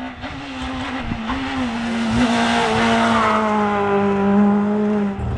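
Rally car engine at high revs approaching and passing close at speed, growing louder to a peak around the middle. Its engine note falls slightly near the end.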